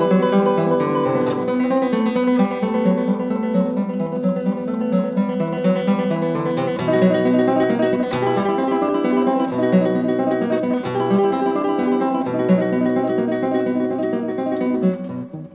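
Background music of plucked acoustic guitar, its level dropping off near the end.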